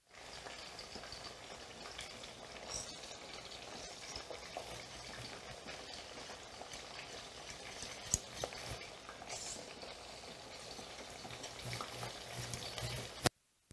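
Zucchini slices frying in oil with a steady sizzle, while a wire whisk stirs béchamel sauce in a steel saucepan. A few sharp clicks of the whisk against the pot, the loudest about eight seconds in and near the end.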